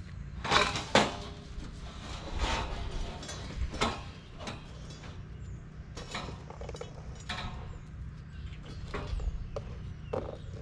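Scattered sharp knocks and clatters, several louder ones in the first four seconds and fainter ones after, over a steady low rumble.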